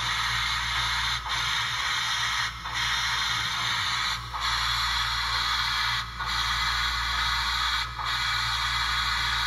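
SoundTraxx Tsunami2 sound decoder in a model Shay locomotive, playing a steady steam hiss through its small speaker over a low hum. The hiss breaks off briefly every one and a half to two seconds.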